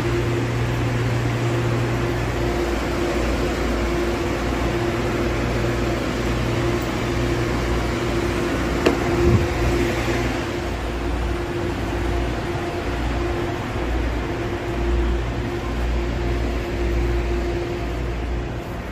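MTR Airport Express train running, a steady rumble of wheels and running gear under a constant mechanical hum, with a short knock about nine seconds in.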